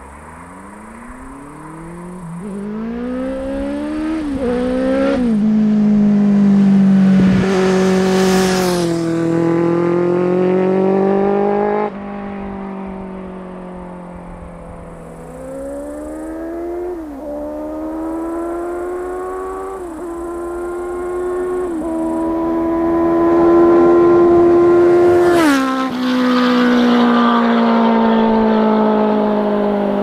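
Yamaha FZS1000's inline-four through a Mivv GP aftermarket exhaust, accelerating hard past: the engine note climbs and drops back with each upshift. Two passes, one about eight seconds in and one about twenty-five seconds in, each with a sharp rush as the bike goes by and a falling pitch as it pulls away.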